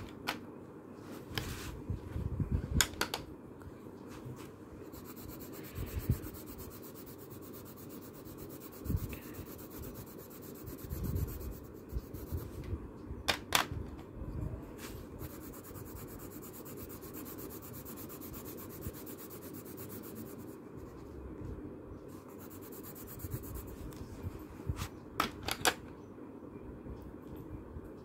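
Colour pencils rubbing and scratching across paper as swatches are shaded, over a steady hum, with a few sharp clicks and soft taps of handling.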